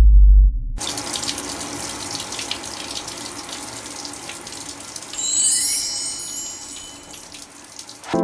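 A deep low boom cuts off under a second in. Then a shower runs, water spraying and splattering steadily. About five seconds in, a high chime swells up over it and fades.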